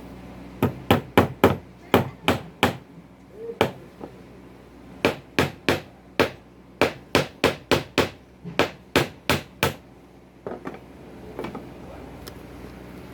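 Hammer blows on wood, sharp strikes at about three a second in two runs: about seven blows, a pause, then about a dozen more, ending in a few lighter taps.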